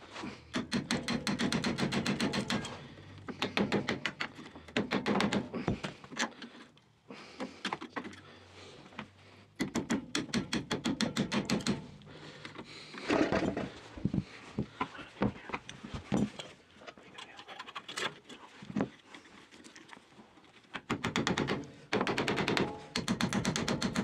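Hammer rapidly striking the rusted, seized pin of a Toyota 4Runner's rear parking-brake bell crank, metal on metal, in quick runs of many blows with short pauses between them, knocking the pin loose.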